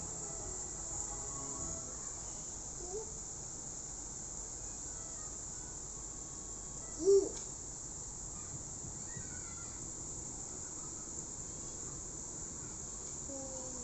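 Steady high-pitched chorus of crickets or other insects over a faint even hiss. Scattered faint chirps come through it, and one short, louder call about halfway through.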